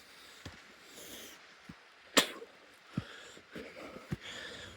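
A hiker breathing hard through the mouth while climbing, with dull, irregular footsteps on the trail and one sharp click about two seconds in.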